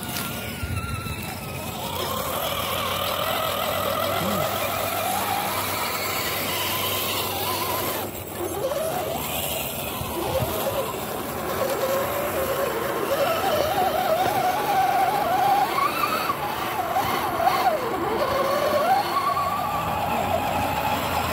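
Whine of scale RC crawler trucks' electric motors and gearboxes, rising and falling in pitch with the throttle, breaking off briefly about eight seconds in.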